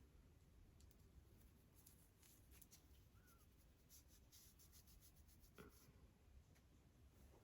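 Near silence with faint scratchy rustling and soft ticks, and one slightly stronger click about five and a half seconds in.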